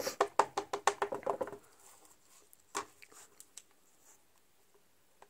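A rubber stamp being dabbed with an ink pad: a quick run of soft taps, about seven a second, for a second and a half. Then one knock and a few faint clicks.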